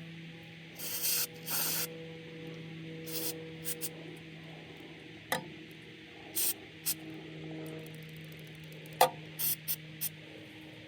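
Aerosol carb cleaner sprayed in a series of short squirts into a Holley carburetor, flushing needle and seats suspected of sticking. A couple of sharp clicks fall between the squirts, over a steady low hum.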